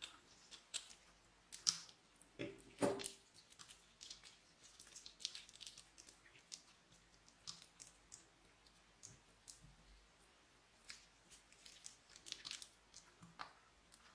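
Scissors snipping the tip of a plastic piping bag, then the bag crinkling and small balls dropping out onto glitter and foil flakes in a glass dish: scattered faint clicks and crinkles, with one louder rustle about three seconds in.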